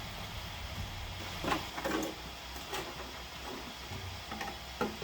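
A few soft, scattered clicks and knocks of handling over a low steady hum.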